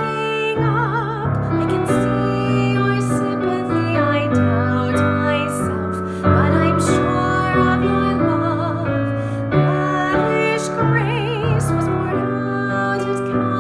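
Hymn music: a slow tune with keyboard accompaniment and a melody line that wavers in pitch.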